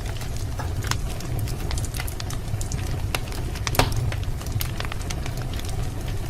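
Wood fire crackling in a fireplace: a steady low rumble of burning with irregular sharp pops and snaps, the loudest pop a little under four seconds in.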